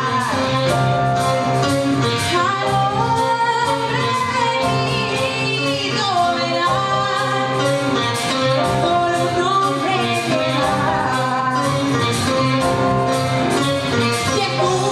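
A live band playing with a girl singing lead into a microphone, her voice sliding between held notes over the instruments.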